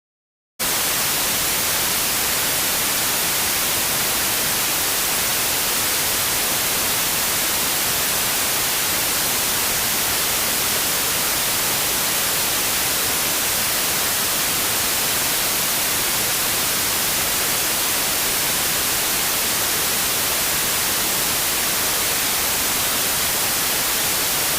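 Steady, even hiss of white-noise static, heaviest in the high frequencies, switching on abruptly about half a second in and cutting off suddenly at the end.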